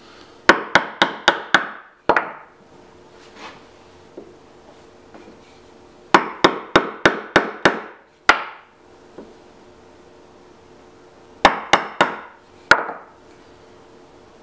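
Mallet striking a mortise chisel to chop along the marking-knife lines of a bowtie-key mortise in a wood slab. There are three quick runs of sharp taps, about four a second: six, then seven, then a shorter run of four.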